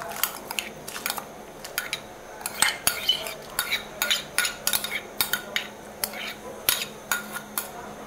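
A metal spoon clinking and scraping against a bowl and an aluminium cooking pot, in quick irregular strikes, as washed rice is scraped into a pot of water and stirred.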